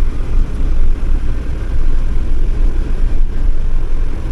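Campervan driving along the road, with a steady low rumble of engine and tyres.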